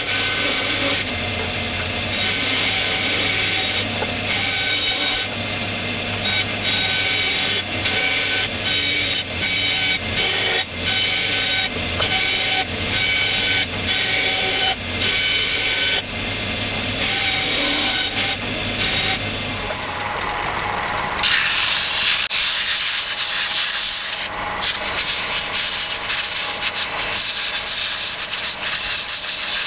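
Bandsaw running with a steady motor hum while its blade cuts through a wooden hammer-handle blank in repeated passes. About twenty seconds in, this gives way to a belt-and-disc sander grinding the wooden handle to shape, a higher, hissing scrape.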